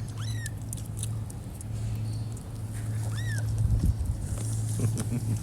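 Two short, high-pitched kitten mews, one near the start and one about three seconds in, over a steady low hum.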